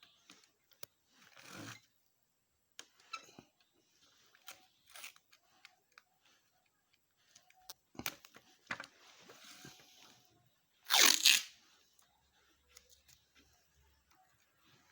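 Scattered clicks, rustles and scrapes of hand repair work on a bird cage. About eleven seconds in comes one loud tearing, rasping noise lasting about half a second.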